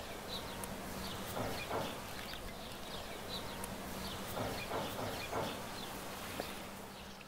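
Outdoor garden ambience with small birds chirping over and over and a few louder calls, fading out at the very end.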